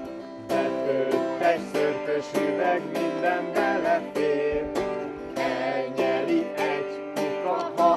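Acoustic guitar strummed in a steady rhythm as song accompaniment, with a sung melody over it from about half a second in.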